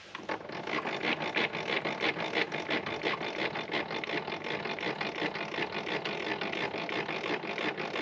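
Rapid, even mechanical clicking, about five clicks a second, going on steadily.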